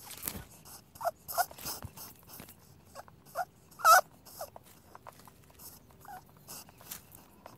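Rabbit squeaking: about ten short, high squeaks at irregular intervals, with faint clicks between them. The loudest squeak comes about four seconds in.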